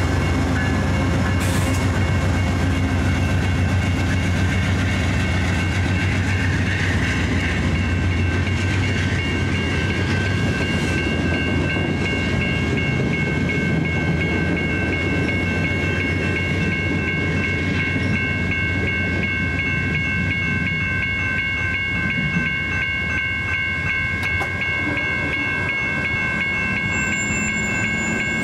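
A VIA Rail passenger train rolls past. First comes the GE P42DC diesel locomotive with a heavy low rumble, then the coaches rolling by on the rails. A level-crossing bell rings steadily over the train.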